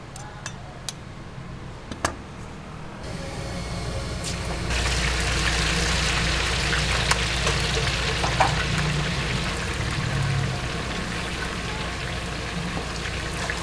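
A few sharp clicks of a knife on a wooden chopping board, then, from about five seconds in, the steady loud sizzle and bubbling of braised Dongshan duck-head snacks deep-frying in a wok of hot oil, with an occasional knock of metal tongs.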